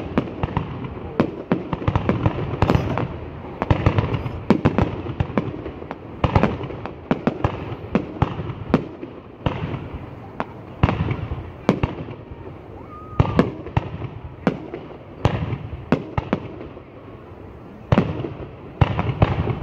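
Fireworks going off in a long irregular run of sharp bangs, often several in quick succession, with a low rumbling echo after the bigger ones.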